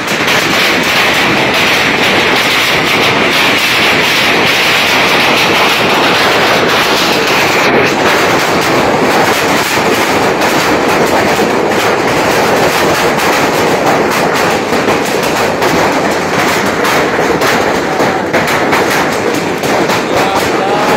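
Heavy hail pelting down: a dense, unbroken rattle of countless hailstones hitting a sheet roof and the ground.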